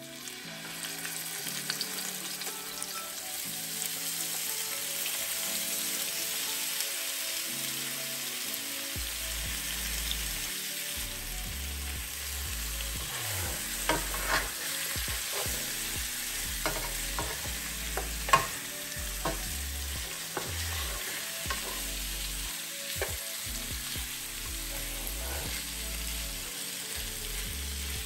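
Chicken thighs sizzling as they fry in hot oil in a nonstick pot. The sizzle builds in the first second as the pieces go in. Utensils knock sharply against the pan now and then as the pieces are moved, and the loudest knock comes about two-thirds of the way through.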